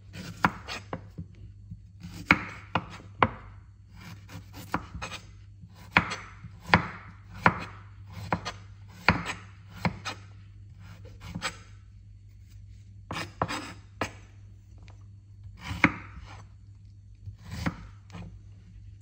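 Kitchen knife chopping fresh ginger root on a wooden cutting board: irregular sharp knocks of the blade striking the board, in runs with short pauses.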